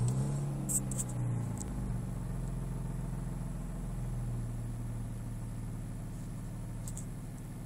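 Opel Omega B engine idling steadily just after starting, heard from inside the cabin, with a few faint clicks. The exhaust is what the owner calls bad.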